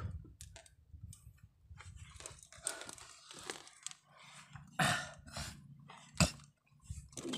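Irregular scuffing, rustling and a few sharp clicks as people shift and clamber over rough rock with a handheld phone, over a low rumble.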